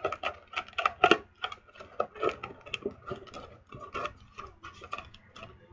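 Stiff cardstock of a paper gift box being handled and folded: irregular crisp taps, clicks and rustles of card, several a second.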